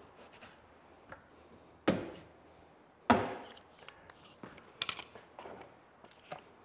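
Clamps being taken off a wooden boat's coaming: two sharp wooden knocks about a second apart, each with a short ringing tail, then a few lighter clicks and clatters of the clamps.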